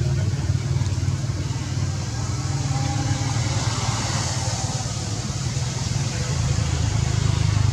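Steady low rumble of an engine running.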